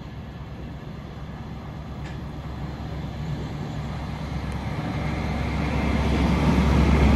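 Class 43 HST diesel power car approaching, its engine running with a steady low hum and the train's running noise growing steadily louder as it draws near.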